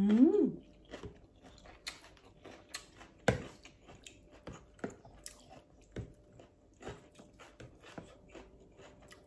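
Close-up eating sounds: chewing and biting on noodles, with a short hummed, rising "mmm" right at the start, then scattered light clicks and taps as a metal fork stirs in a plastic basin of duck noodle soup.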